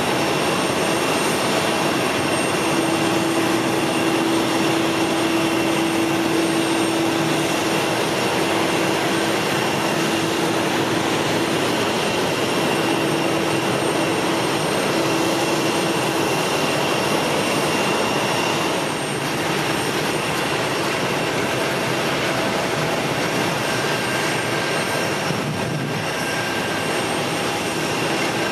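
Jet airliner engines running steadily: a loud, even rushing noise with a steady whine on top, easing off slightly about two-thirds of the way through.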